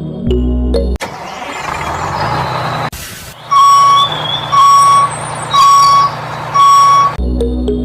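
Truck reversing alarm beeping four times, about one beep a second, after a couple of seconds of truck engine noise. Background music plays at the start and returns near the end.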